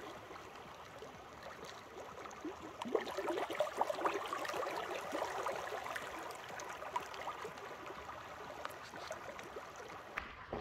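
Shallow creek water rippling and gurgling over a sand bed, a steady babble that grows louder for a few seconds in the middle.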